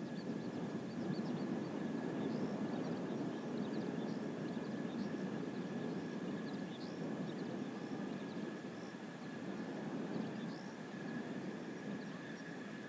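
Jet engine noise from Blue Impulse Kawasaki T-4 jets flying overhead: a steady rush with a high whine held through it, easing slightly near the end.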